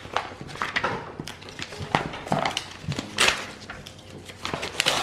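Sheets of printed paper rustling and crackling as they are leafed through and pulled apart by hand on a countertop, in a string of short rustles, the loudest a little after three seconds in and near the end.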